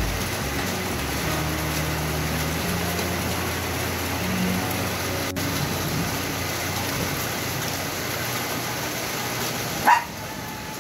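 Steady outdoor hiss with a low rumble of traffic underneath; near the end a dog gives one short, rising yelp.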